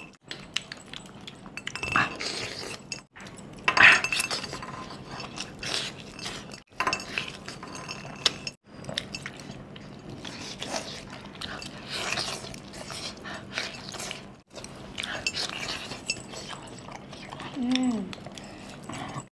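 A person eating chicken curry by hand: wet chewing and mouth sounds, with scattered light clinks from metal rings and bangles against a steel bowl. The sound cuts out abruptly several times, and a short vocal sound comes near the end.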